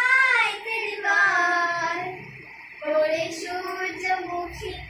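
A young girl's voice singing a Bengali song unaccompanied, in long held notes, dipping briefly about two seconds in.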